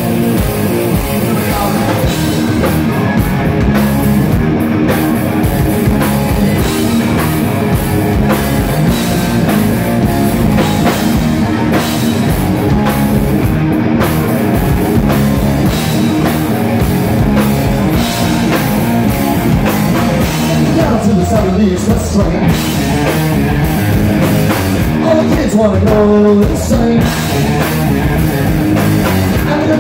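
Rock band playing live: electric guitars, bass guitar and drum kit, loud and steady throughout.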